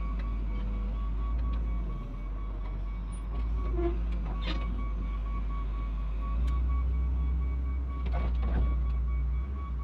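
Diesel wheel loader running, with its backup alarm beeping steadily. A few sharp metallic knocks stand out, one about halfway through and a couple near the end, and the engine grows louder in the second half.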